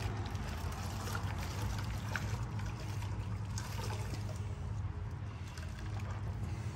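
Water trickling and dripping as a wet rag is wrung out, over a steady low hum.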